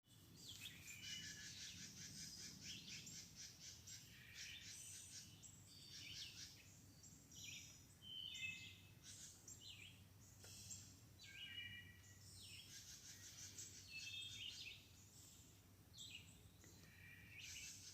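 Faint chorus of several songbirds in trees, singing and calling over one another with short chirps and rapid trills.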